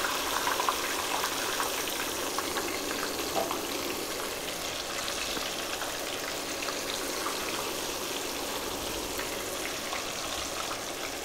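Smashed plantain slices, already fried once and dipped in salt water, deep-frying a second time in hot oil in a stainless steel pot: a steady sizzle with small crackles scattered through it.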